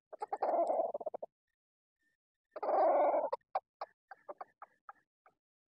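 Red junglefowl calling: two harsh calls, the first about a second long and the second shorter, then a run of short clucks that slow down and fade.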